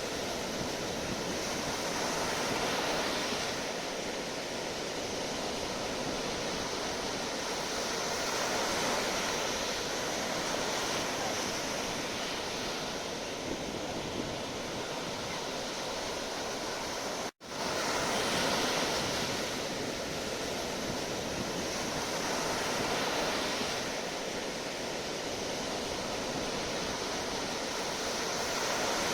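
Sea waves washing ashore: a steady rushing surf that swells and eases every few seconds. It breaks off for an instant about two-thirds of the way through, then resumes at once.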